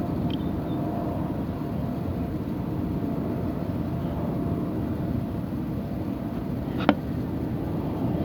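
Steady low rumbling noise with a faint constant hum, broken by a single sharp click about seven seconds in.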